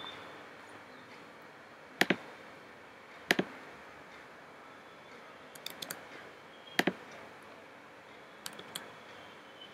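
Computer keyboard keys and mouse clicks, sharp and scattered: single strokes and pairs, with a quick run of four about halfway through.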